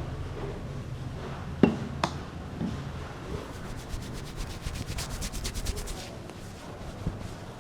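Hands rubbing on hair and scalp during a head massage, with two sharp clicks about a second and a half in and a quick run of short, fast rubbing strokes in the middle.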